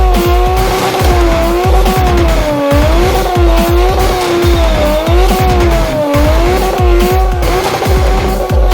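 Music with a heavy bass beat pulsing about twice a second under a wavering lead tone that glides up and down.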